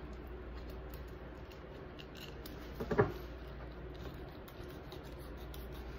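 Fillet knife cutting into a small porgy on a countertop, with faint scraping cuts and one sharp knock about three seconds in.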